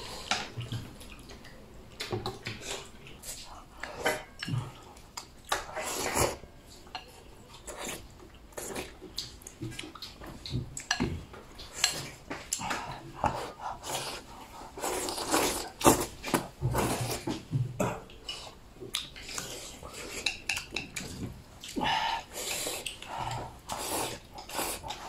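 Wooden chopsticks clicking and scraping against a ceramic bowl as a person eats from it, with eating noises at the bowl's rim; the clicks come irregularly, several a second at times.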